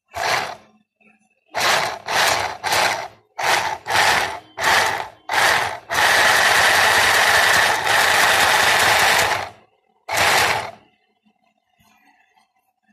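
Mini portable sewing machine running in short stop-start bursts: eight quick runs, then one steady run of about three and a half seconds, then one more short burst.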